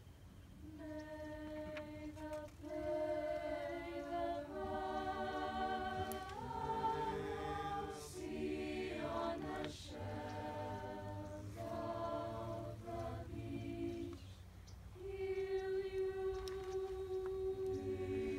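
Chamber choir singing a cappella. The singing begins about a second in and moves through phrases of held notes, breaks off briefly about three-quarters of the way through, then comes back on a long held note.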